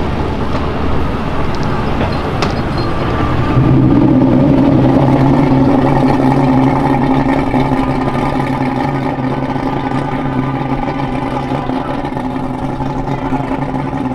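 Tow vehicle's engine under load hauling a boat on its trailer up the ramp out of the water: a steady engine note that comes in louder about three and a half seconds in and then holds.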